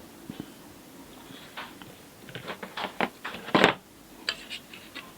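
A scatter of light clicks and knocks from drawing instruments handled on a drawing board, with one louder knock about three and a half seconds in.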